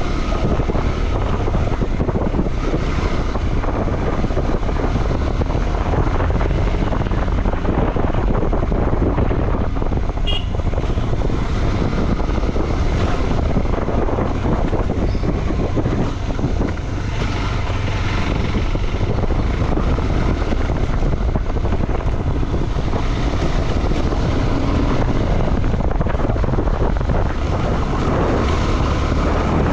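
KTM 390 Adventure motorcycle running on a trail ride, mostly covered by steady wind buffeting on the microphone.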